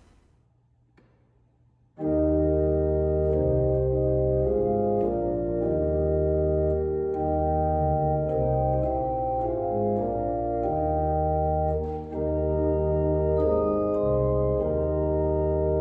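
Near silence for about two seconds, then an organ comes in, playing sustained chords over held bass notes that change every second or two.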